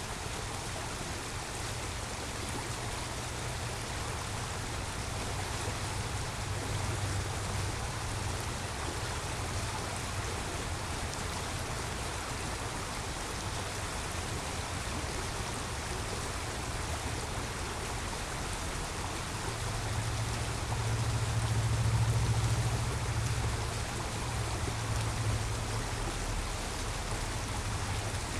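Creek water running steadily, with a low rumble of road traffic underneath that swells about twenty seconds in.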